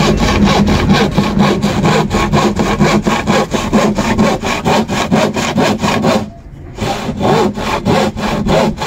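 Hand saw cutting through a board in quick, even back-and-forth strokes, about four a second. The sawing stops for a moment about six seconds in, then starts again.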